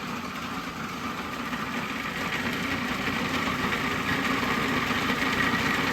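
Food processor motor running steadily on low, blending soaked dates, melted ghee and egg yolks into a smooth purée.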